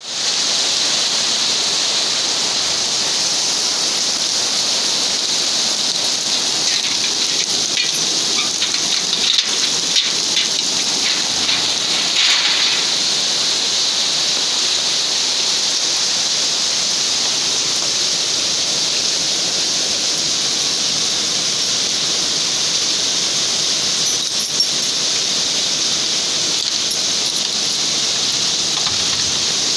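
Heavy rain pouring steadily, a loud even hiss, with a few faint taps in the middle.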